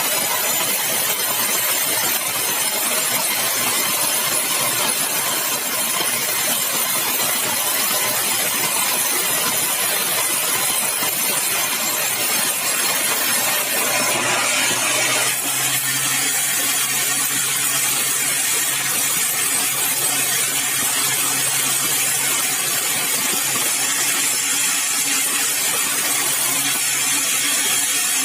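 Sawmill saw cutting through a large, dry, hard red balau log with a loud, steady cutting noise. About 14 seconds in the sound changes, thinning in the middle and letting a steady low hum through.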